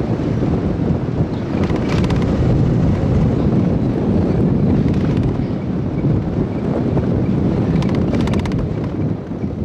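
Wind buffeting the microphone with a steady low rumble, over outdoor street noise, with a couple of brief clicking rattles.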